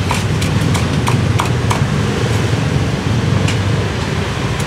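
Cleaver chopping roast pork on a thick wooden chopping block: a quick, uneven run of sharp knocks, several a second, over a steady low background rumble.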